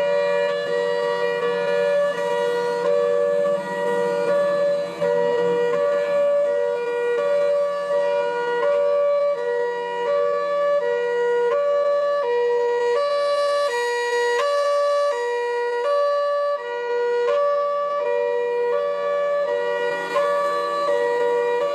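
A two-tone siren, its steady tone switching back and forth between a lower and a higher pitch about once a second.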